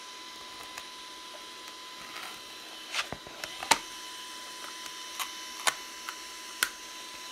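Fingers prying a thin ABS print off a flexible magnetic 3D-printer build sheet: scattered small clicks and ticks, a handful between about three and seven seconds in, over a faint steady hum.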